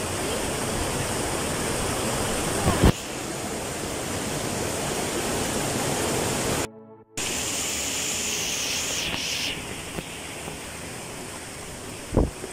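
Rocky mountain stream running over boulders: a steady rush and splash of water through a small cascade. The sound cuts out for about half a second a little past the middle, and there is a soft knock about three seconds in and another near the end.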